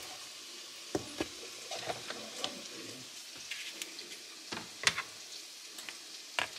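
Food sizzling in a pan on the stove, a steady hiss, with several sharp clicks and taps of kitchen items being handled scattered over it, the loudest near the end.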